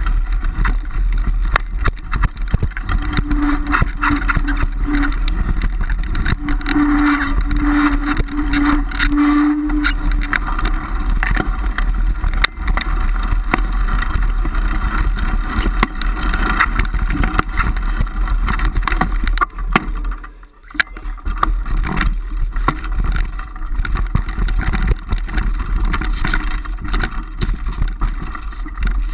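Wind buffeting the microphone of a mountain bike descending a rough dirt trail at speed, with constant rattling and knocks from the bike over bumps. A low steady tone comes and goes between about three and ten seconds in, and there is a brief lull about twenty seconds in.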